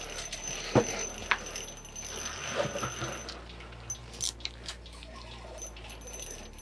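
A few sharp clicks and light rattling handling sounds from an ice-fishing rod and reel being worked with a fish just hooked, over a faint steady hum.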